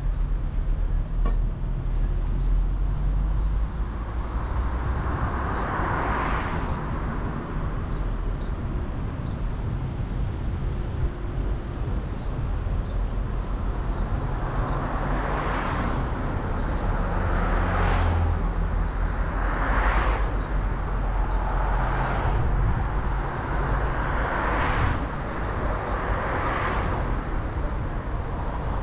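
Road noise from a car being driven: a steady low rumble of engine and tyres, with other vehicles swishing past about seven times, each pass swelling and fading over a second or two.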